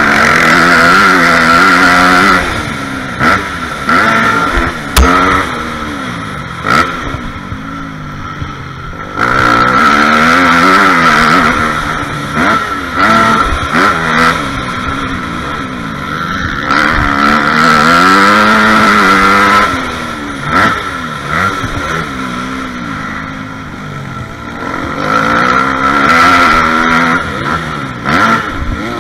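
Dirt bike engine revving under hard throttle and easing off, its pitch climbing and dropping again several times as it is ridden along a dirt track, with scattered sharp knocks.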